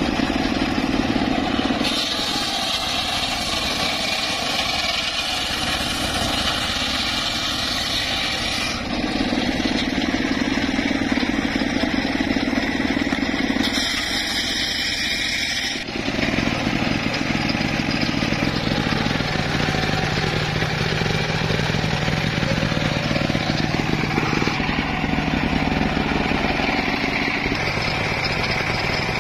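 Engine running steadily, its pitch and loudness changing abruptly several times.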